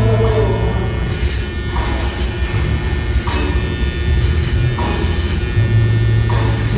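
Electric hair clippers buzzing, with music playing in the background.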